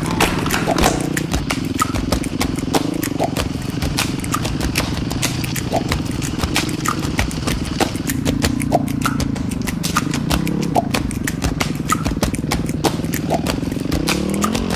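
2008 Yamaha WR450F single-cylinder four-stroke dirt bike engine running at low revs, its pitch rising and falling as the throttle is worked, with a rapid run of sharp clicks throughout.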